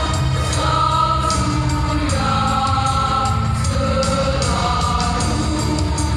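A choir singing long held notes in several parts.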